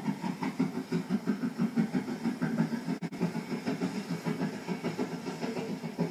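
Great Western Railway 2-8-0 tank engine No. 4247 running past under steam, chuffing in a steady rhythm of about three to four beats a second with a light steam hiss. A brief break comes about halfway.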